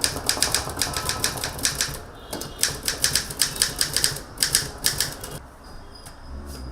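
Manual typewriter typing: fast runs of key strikes, about seven a second, with a short pause about two seconds in. The striking stops about five seconds in.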